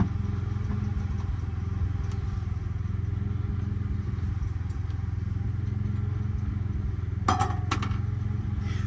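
Truck camper furnace running with a steady low hum. A brief clatter of a few sharp knocks comes about seven seconds in.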